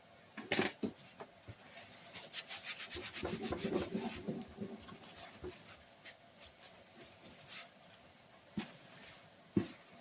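Quick rubbing strokes on a small part by hand for about two and a half seconds, between a few sharp clicks and knocks of small metal parts being handled.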